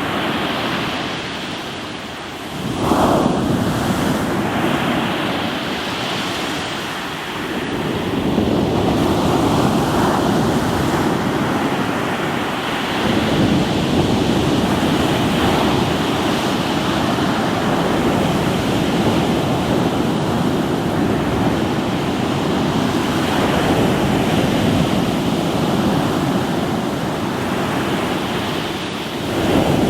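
Ocean waves breaking and washing over a rocky shore, a continuous surf rushing that swells and eases as each wave comes in, with some wind noise on the microphone.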